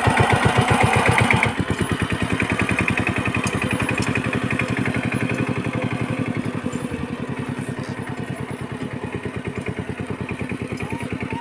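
Small engine running with an even, rapid thumping beat, a little quieter after about a second and a half.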